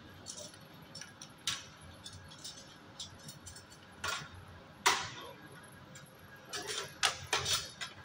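Copper refrigeration tubing clinking and knocking as a fabricated cooling coil is handled and set in place on a workbench: scattered sharp metallic clinks, the loudest about five seconds in, then a quick cluster of them near the end.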